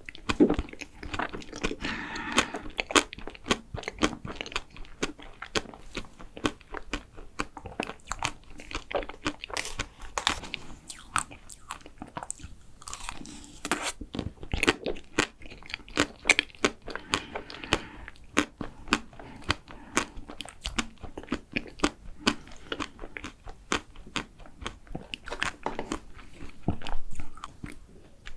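Close-miked chewing and biting of vanilla ice cream cake, with many small sharp clicks of mouth and food sounds at an uneven pace.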